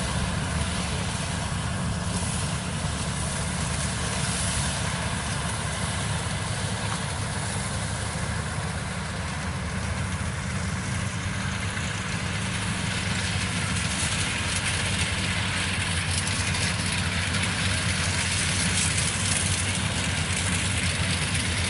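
Kubota rice combine harvester's diesel engine running steadily under load while the machine cuts and threshes rice, with a constant rushing of the cutting and threshing gear over the engine note. It grows a little louder in the second half.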